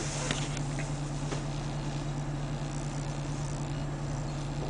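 Steady low hum inside a parked car's cabin, with a few faint clicks in the first second or so.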